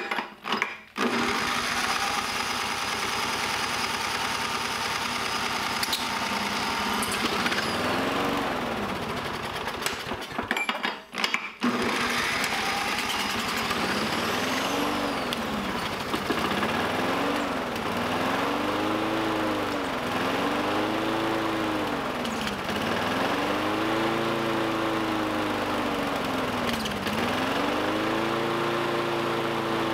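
Small lawn mower engine, running on non-chlorinated brake parts cleaner as its fuel, is spun with a corded electric drill and then runs on its own. From about a quarter of the way in, its speed keeps rising and falling every second or two, surging unevenly.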